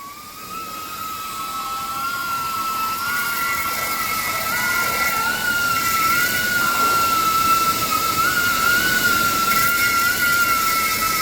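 Abrasive belt grinder running: a steady high whine over a hiss, growing louder through the first few seconds.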